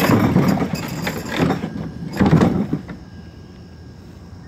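Rustling and scraping noises for about three seconds, loudest a little past two seconds in, then a steady low background hum.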